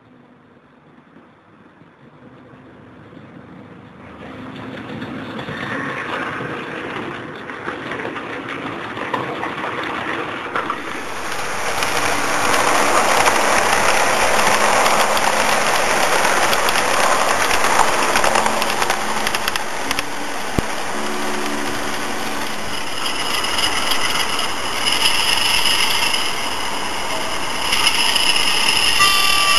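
Model train running on garden railway track, approaching and passing close by: a rumble of wheels on rail that grows from faint to loud and peaks about halfway through. Steady whining tones join in near the end.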